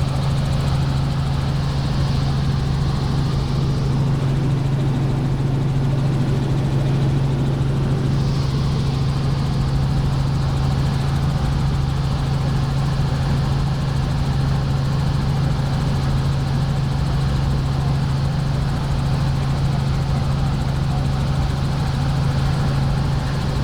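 Helicopter in steady flight: a loud, unchanging engine and rotor drone with a strong low hum.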